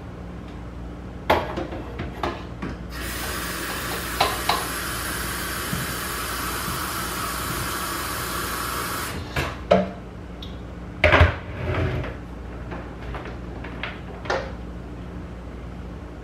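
Kitchen tap running for about six seconds as an electric kettle is filled, followed by several clunks and knocks as the kettle is handled and set back on its base.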